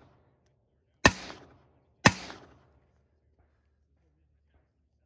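Two rifle shots about a second apart from a short-barrelled rifle fired from prone, each a sharp crack with a brief echo.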